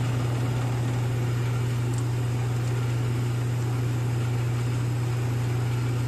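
Steady low hum with an even whirring hiss above it, from a powered refrigeration unit's machinery running. It holds one level throughout.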